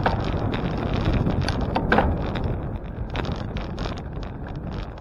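Wind buffeting the microphone of a camera riding along on a bicycle: a dense rumble with frequent short sharp clicks over it, easing off somewhat in the second half.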